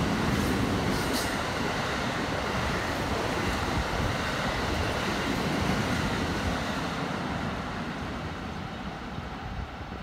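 Electric train running along the adjacent station track, a steady running noise that grows fainter near the end as it clears.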